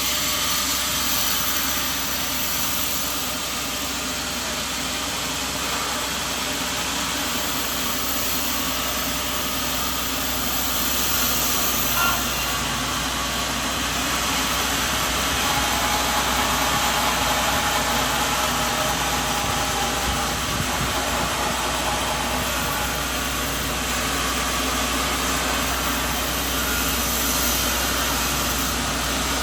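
An engine running steadily at constant speed under a continuous mechanical noise, with a single short knock about twelve seconds in.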